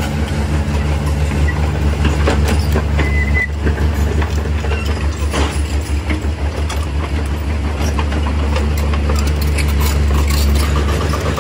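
Hitachi EX110 excavator's diesel engine running steadily at close range, a deep, even drone with scattered knocks and clanks over it.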